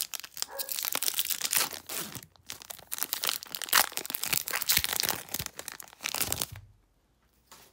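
Foil Magic: The Gathering booster pack wrapper being torn open and crinkled by hand, a dense, irregular crackle that stops about a second before the end.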